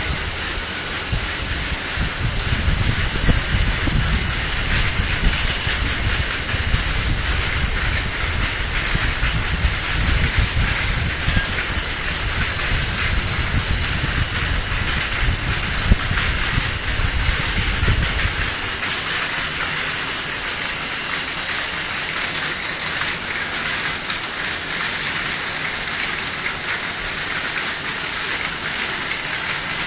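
External vial washer for 50 ml vials running with a steady hiss. A low rumble underneath stops about two-thirds of the way through while the hiss carries on.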